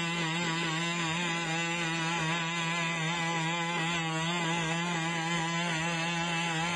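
Engine of a four-legged pack robot buzzing steadily as it walks, a constant engine drone powering its hydraulic legs.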